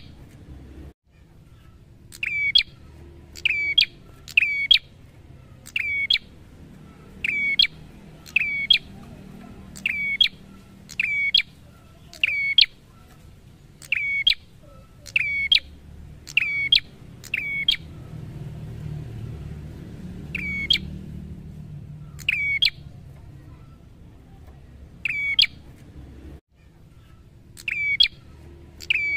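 Caged tailorbird (prenjak) calling: a short, loud, sharp note repeated about once a second, in runs broken by a couple of pauses. A faint low rumble runs beneath.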